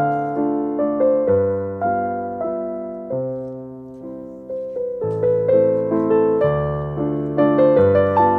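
Background piano music: a slow melody over low bass notes, each note struck and dying away, easing into a softer lull about three to four seconds in.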